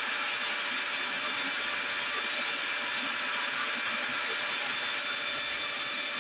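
Steady hiss with a few faint steady tones under it, unchanging throughout, with no distinct events.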